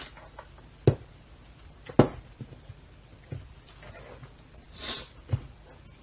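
Handling noises: two sharp knocks about one and two seconds in, a few fainter ticks, and a short rustle near the end.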